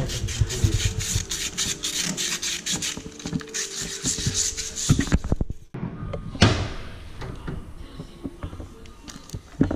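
Rapid scraping and rubbing of gloved hands and tools on a metal car suspension arm, lasting about five seconds. After a short break comes a single sharp knock, then a few light clicks.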